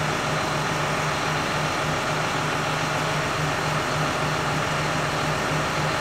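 Generator engine running at a steady hum, just started to power the unloading of grain wagons.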